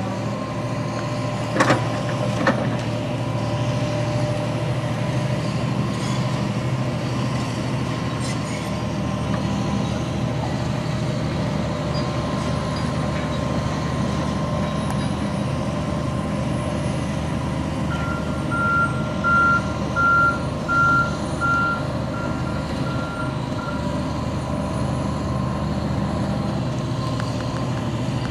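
Hitachi Zaxis 350LC excavator's diesel engine running steadily, with two sharp knocks about two seconds in. About two-thirds of the way through, its travel alarm beeps about nine times in a row, a warning that the machine is moving on its tracks.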